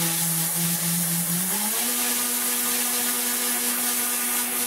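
Tornador Black air-pulse cleaning gun blasting straight compressed air, with no water, into car carpet. A loud steady hiss of air runs with a pitched whine from the tube spinning in its tip; the whine rises in pitch about two seconds in, then holds steady.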